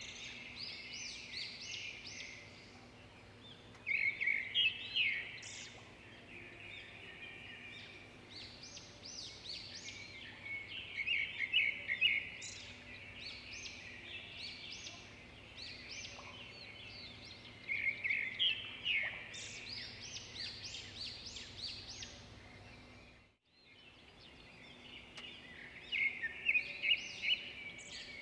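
Small birds chirping and chattering, dense clusters of quick high notes that come and go every few seconds. The sound cuts out briefly about 23 seconds in.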